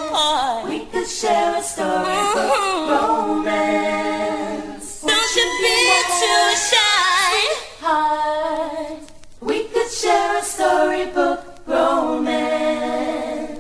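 Layered female vocals singing a cappella in harmony, with long held notes and vibrato and no backing beat, in a 1980s dance-pop club mix. The voices break off briefly twice in the second half.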